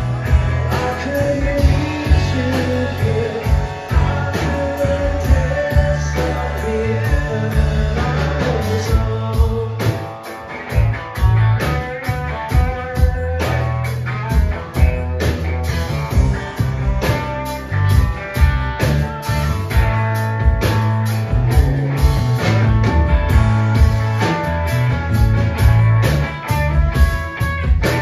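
Live rock band playing: electric guitar, electric bass and drum kit, with cymbals keeping a steady beat. The band drops back briefly about ten seconds in.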